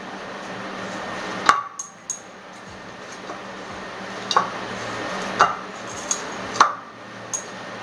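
Stainless steel bowl clanking with a brief metallic ring as soft dough is pressed and kneaded in it by hand: irregular knocks, four loud and several lighter.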